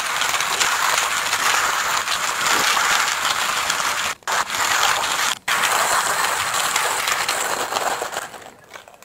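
Timemore Chestnut Nano hand grinder cranked steadily, its burrs crushing medium-roast beans set fine for espresso at 8 clicks: a dense, continuous crunching grind. It cuts out briefly twice around the middle and fades away near the end.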